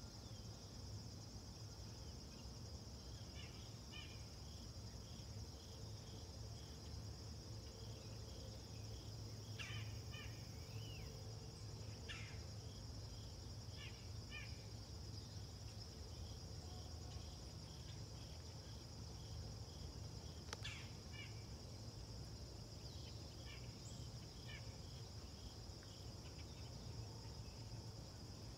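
Insects chirping in a steady, high-pitched outdoor chorus, with scattered short chirps over it and a low hum underneath.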